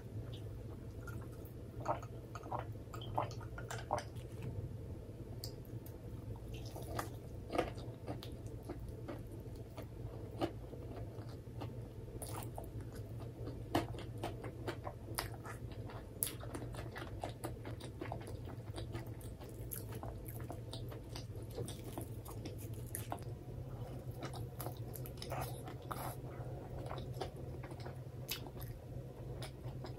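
Close-miked chewing and biting of karaage (Japanese fried chicken) dressed with mentaiko mayonnaise: wet, squishy mouth sounds with irregular sharp clicks every second or so.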